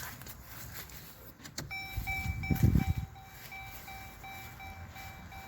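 A car's electronic warning chime beeping in a steady, rapid on-off pulse, starting about two seconds in, with a louder low thump or rumble briefly near the middle.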